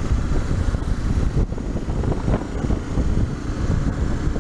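Honda XRE 300's single-cylinder engine running as the motorcycle is ridden, under wind rushing over the camera microphone.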